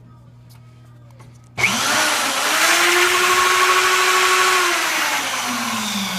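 An electric drill starts suddenly about a second and a half in, spinning up quickly to a steady whine while drilling a hole through 3/16-inch steel plate. Its pitch sags toward the end.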